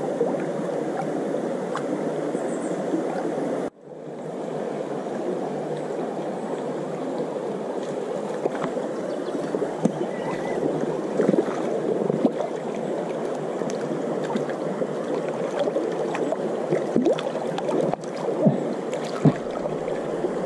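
Shallow stream running over stones close by, a steady rushing with small splashes and clicks scattered through it; the sound drops out for a moment about four seconds in.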